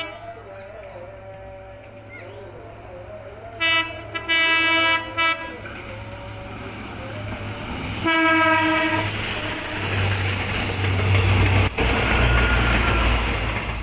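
Indonesian CC 206 diesel-electric locomotive sounding its horn in a few short blasts about four seconds in and once more around eight seconds, then passing close with a loud rising rumble of engine and wheels on the rails.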